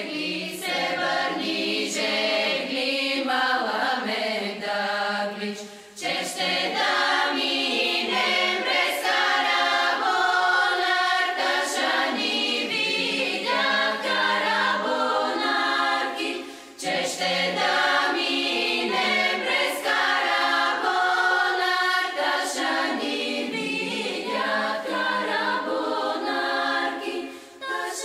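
Background music: a choir singing, in phrases with short breaks about six seconds in, around seventeen seconds and just before the end.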